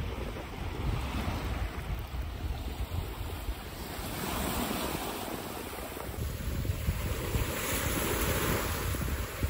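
Sea waves washing onto the beach, the surf hiss swelling about midway and again near the end, with wind buffeting the microphone as a steady low rumble.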